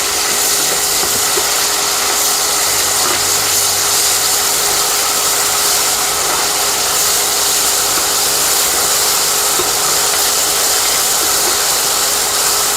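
Onion and ginger-garlic paste frying in hot oil and ghee: a steady, loud sizzle.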